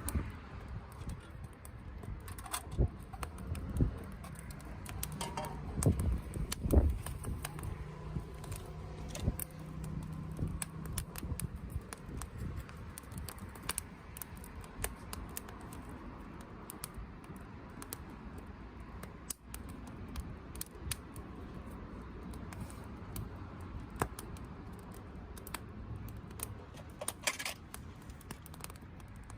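Wood campfire crackling, with scattered sharp pops and snaps throughout and a few louder low knocks about six to seven seconds in.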